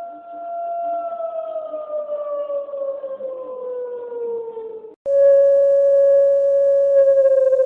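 Civil defense siren tone holding a steady pitch, then slowly winding down. It cuts off abruptly about five seconds in, and a louder siren tone starts at a slightly lower pitch, holds steady, and begins to fall near the end.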